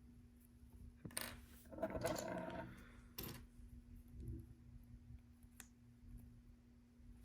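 Plastic LEGO pieces clattering and being handled, with a longer rattle about two seconds in and a few sharp clicks.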